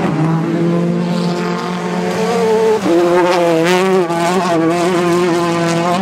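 Peugeot 208 T16 R5 rally car's turbocharged 1.6-litre four-cylinder engine running hard at high, fairly steady revs. There is a brief break in the note about three seconds in, and it sounds harsher after it.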